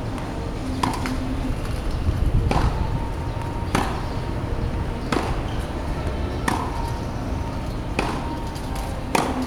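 Tennis ball being hit back and forth with rackets in a practice rally: a sharp pop off the strings about every second and a half, some followed by a brief ring.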